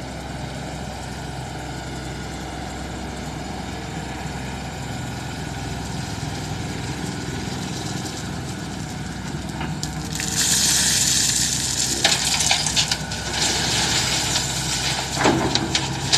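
Excavator engine running steadily. About ten seconds in, a bucketload of gravel pours into the vehicle with a loud rush and clatter of stones, with a few sharp knocks near the end.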